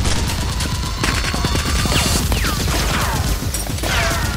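Rapid, continuous gunfire sound effects laid over toy Nerf blasters being fired, with a few falling whistling sounds in the second half.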